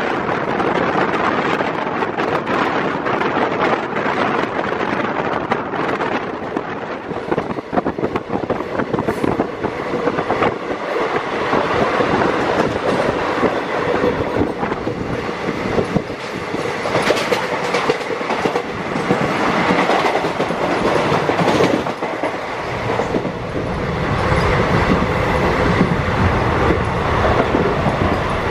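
Express passenger train running at speed on the track, a steady rattling rush with rapid clicks from the wheels. The low rumble grows heavier about two-thirds of the way through.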